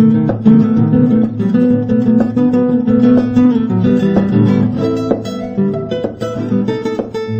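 Background music: acoustic guitar, strummed and plucked, playing continuously.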